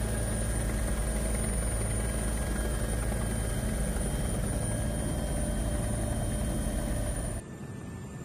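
Helicopter engine and rotor noise heard from on board: a steady low drone. About seven seconds in it cuts off abruptly to a quieter steady rush.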